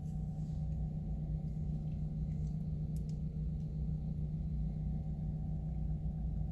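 Steady low mechanical hum with one constant tone, unchanging throughout, with a few faint ticks.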